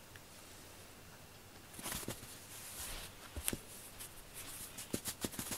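Soft rustling and a few light taps of a cat teaser toy moved over the floor mat as a cat paws at it. The rustling starts about two seconds in, with sharper taps near the end.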